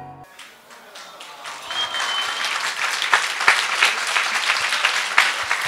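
A song cuts off at the very start. A crowd of guests then claps, growing louder after about a second and a half, with a short high whistle about two seconds in.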